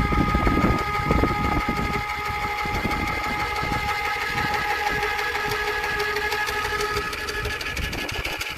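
VEVOR 5-ton electric hydraulic car jack's motor and pump running steadily, giving a high, even whine over a low rumbling rattle.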